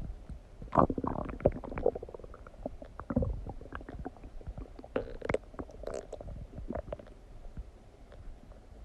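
Human stomach gurgling while digesting a meal: an irregular run of short pops and bubbling gurgles, the strongest about a second in.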